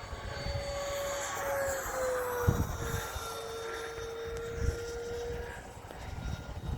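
Whine of a Freewing Avanti S 80mm electric ducted-fan RC jet in flight, its pitch dipping slightly about two and a half seconds in. Wind buffets the microphone throughout, with a couple of sharp thumps.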